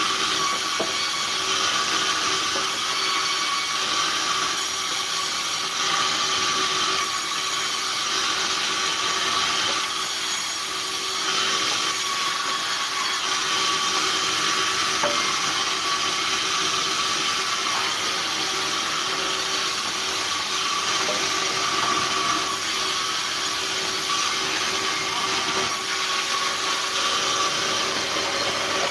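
Sawmill band saw running steadily while its blade rips boards that are pushed through by hand. It makes a constant hiss over a steady hum.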